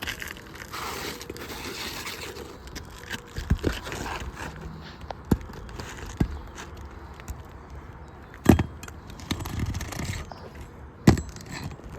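Asphalt roofing shingles scraping and rustling as a replacement shingle is handled and fitted, with scattered small clicks and two sharp knocks in the second half.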